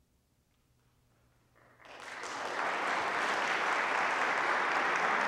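A hush, then audience applause breaks out about two seconds in, swells quickly and holds steady.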